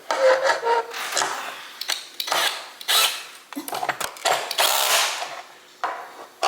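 Screws being tightened into flat-pack furniture with a hand tool, in a string of short irregular bursts of clicking and scraping.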